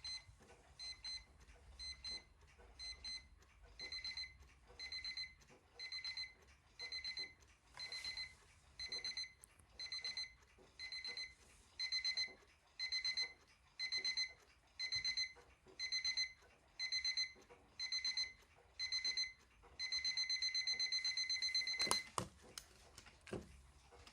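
Landex Mint Colon alarm clock's electronic alarm beeping: short high beeps at first, then pulsed bursts about once a second that get louder about halfway through. It turns into a continuous beep near the end and cuts off with a click.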